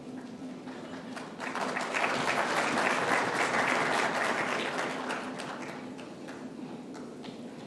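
Audience applauding: the clapping swells about a second in, is loudest in the middle, and dies away near the end.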